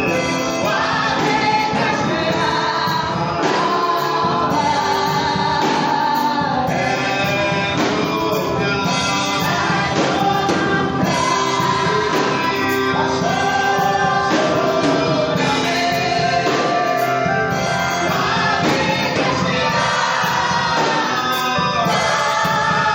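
Gospel praise song sung by a choir and congregation, with steady instrumental backing under the voices.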